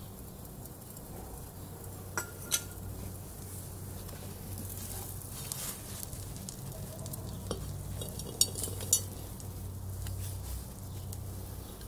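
Metal pot lid and dial thermometer being handled with gloved hands: two sharp clinks a couple of seconds in, and three more between about seven and nine seconds, over a low steady hum.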